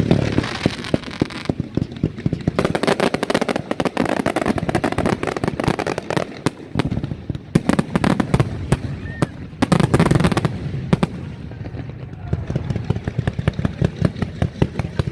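Valencian-style nocturnal mascletà fireworks: a dense, rapid barrage of firecracker bangs, with heavier blasts near the start and again around ten seconds in.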